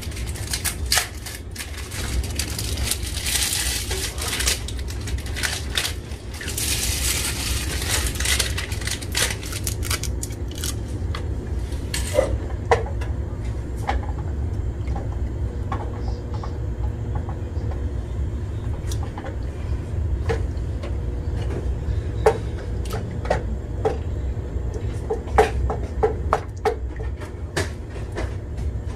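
Wooden spoon stirring thick béchamel sauce in an aluminium pot, scraping the bottom and clicking and knocking against the sides. The scraping is busiest in the first dozen seconds, over a steady low hum.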